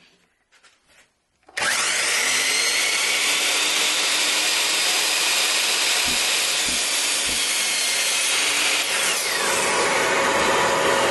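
A compound miter saw starts suddenly about one and a half seconds in and cuts through a black walnut board with a loud, steady noise. There are a few low knocks partway through. Near the end the motor's whine falls in pitch as the blade spins down, while a steady rushing noise carries on.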